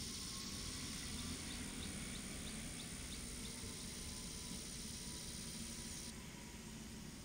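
Quiet outdoor ambience: a steady hiss with a thin high whine, and a faint run of about eight small chirps in the first half. The high hiss and whine drop away about six seconds in.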